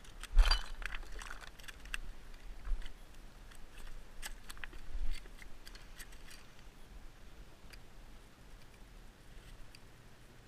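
Handling noise of a fishing rod, line and a small fish just caught on a jig: scattered clicks and rustles, with a sharp knock about half a second in and fainter clicks near the end, over a low rumble.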